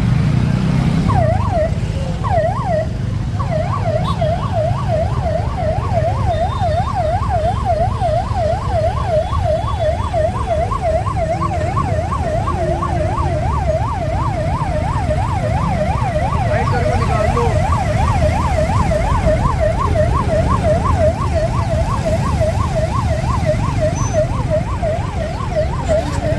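Emergency vehicle siren in a fast yelp, its pitch sweeping up and down about three times a second, starting about a second in, over a steady low rumble.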